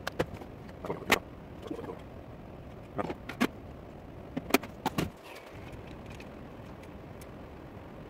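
Metal lathe machining the aluminium bearing housing of a Raket 95 karting engine: a steady running hum with irregular sharp clicks.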